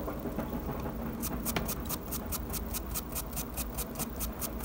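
Flat paintbrush scrubbing across plastic model roof tiles, dry-brushing weathering paint on in quick scratchy strokes, about six a second, starting about a second in.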